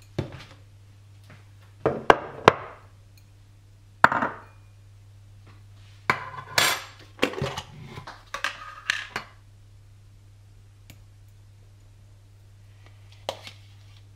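Dishes and kitchen utensils being handled, clinking and knocking: a few sharp knocks about two seconds in, a busier run of clatter from about six to nine seconds, and one more clink near the end. A steady low hum runs underneath.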